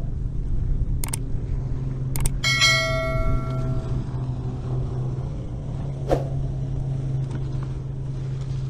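A bell-like chime rings out about two and a half seconds in and fades over a second or so, among a few sharp clicks, over a steady low hum.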